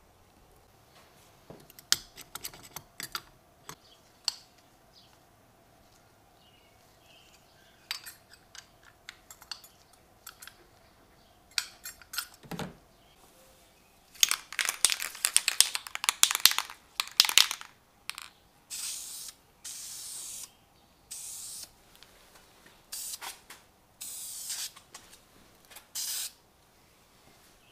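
Aerosol spray-paint can: a stretch of fast rattling as the can is shaken, then about six short hisses of spray, each under a second. Before them, scattered clicks and knocks of parts being handled.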